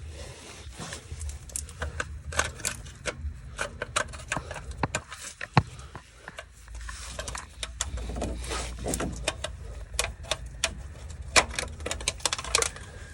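Irregular clicks, taps and rattles of the starter shield and its loose bolts being handled and worked free, with a couple of sharper knocks standing out.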